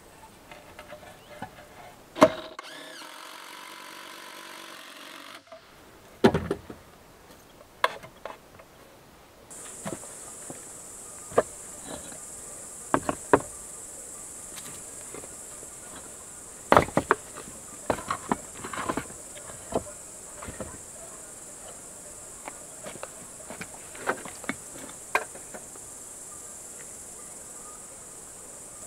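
Hard knocks and clicks come at irregular intervals as hand tools and pieces of wood are handled on a wooden workbench. From about a third of the way in, insects chirr steadily at a high pitch.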